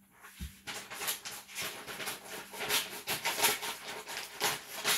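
Irregular rustling and scraping of materials being handled at a heat-press table, several short crackles a second, a few of them louder.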